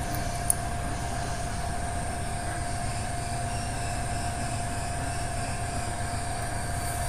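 Steady mechanical hum with a constant whine, unchanging in pitch, and a single sharp click about half a second in.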